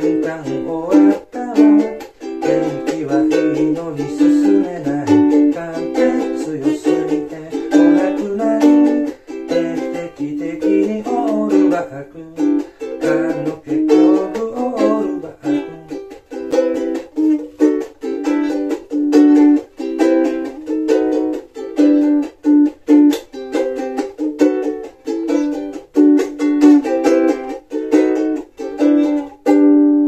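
Ukulele strummed in a lively, choppy rhythm with no singing. A lower melodic line moves underneath for about the first half, and the final strum near the end is left ringing.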